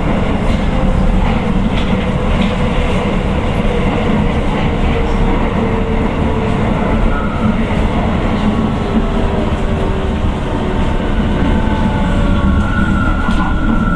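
Keio 9000 series train's Hitachi IGBT-VVVF inverter and traction motors, heard from inside the car over a steady rumble of wheels on rail. The motor whine falls slowly in pitch as the train slows, and a higher steady tone comes in near the end.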